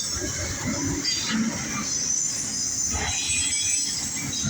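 Freight cars of a CSX intermodal and autorack train rolling past, a steady rumble of wheels on rail with a thin high-pitched wheel squeal over it.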